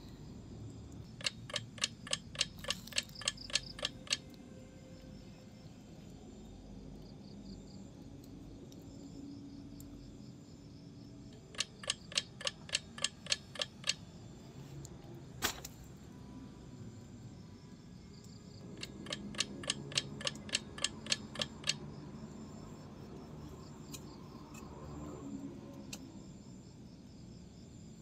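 Three runs of rapid, even clicking, about four clicks a second for around three seconds each, with a single sharp knock between the second and third runs.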